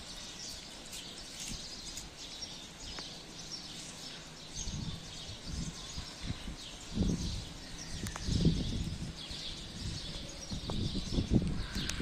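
Small birds chirping over and over, with several low, dull thumps starting about five seconds in.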